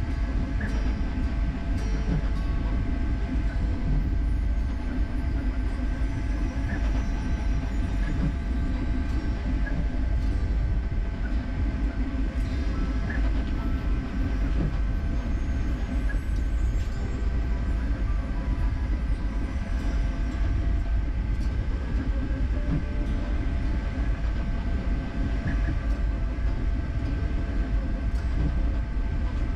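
Creality K1C 3D printer running a fast print: a steady low rumble of the moving print head, with several steady whining tones over it and a few light clicks.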